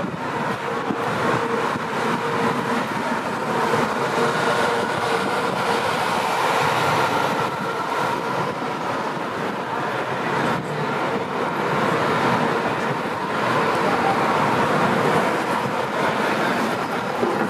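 Steady city street noise: traffic running continuously, with a faint steady hum through it.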